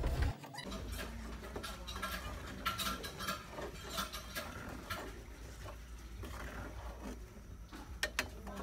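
Metal ladle scraping and clinking against a stainless steel pan as thick chili garlic paste is stirred, in irregular strokes.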